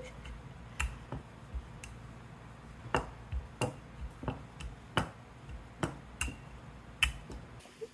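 A wooden rolling pin rolling out a small disc of bao dough on a silicone baking mat, giving about ten sharp clicks at uneven spacing as it is pushed back and forth.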